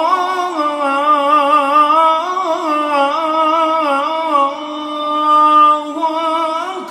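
A single voice singing a slow, ornamented melody in the style of an Islamic nasheed, with long wavering held notes.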